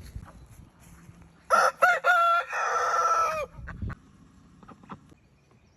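A rooster crowing once: a few short broken notes, then a long held note that drops off at the end, about two seconds in all.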